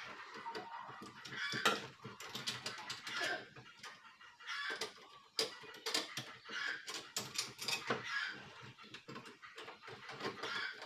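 Chickens clucking repeatedly, mixed with short sharp metallic clicks and knocks from a doorknob lockset being worked into a door.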